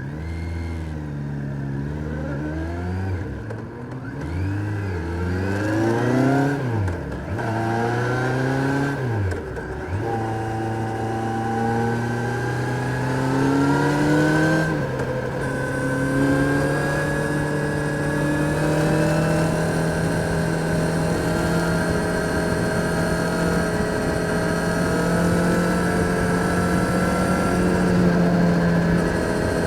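Kawasaki Z900's inline-four engine pulling through several gears in the first ten seconds, the revs climbing and dropping back at each upshift. It then holds a steady cruise, the revs creeping up slowly.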